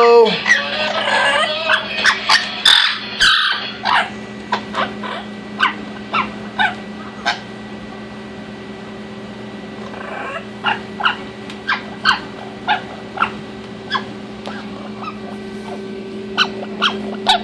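Orange-winged Amazon parrot making short, sharp clicking and chirping sounds, about two a second, with a pause partway through, after a brief burst of vocal sound at the start.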